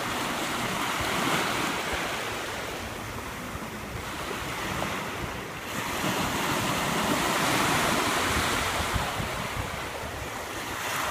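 Small ocean waves, about 6 to 8 inches high, breaking and washing in at the shoreline, with wind on the microphone. The surf swells and eases, loudest in the second half.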